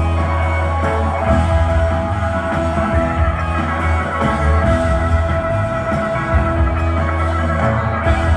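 Live rock band playing, with electric guitar over a heavy, sustained bass.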